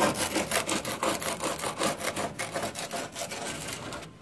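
A hand tool scraping quickly back and forth, several strokes a second, along a rusty steel windshield channel, chipping off old hard plastic windshield sealing compound and rust. The strokes grow fainter and stop just before the end.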